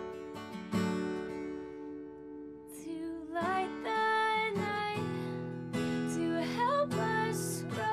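Acoustic guitar strummed, its chords ringing out, with a voice starting to sing along about three seconds in.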